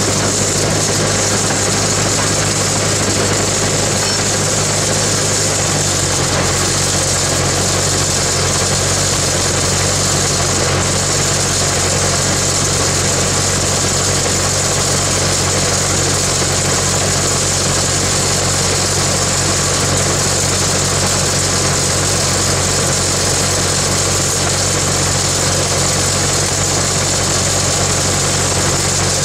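An engine running steadily at idle, its note shifting slightly about six seconds in.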